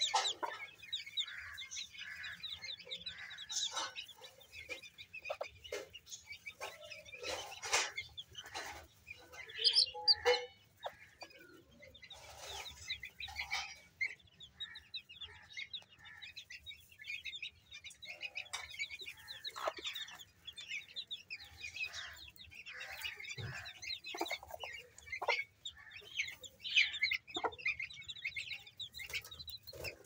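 A brood of Aseel chicks peeping continuously in high, short chirps, with a hen clucking now and then among them.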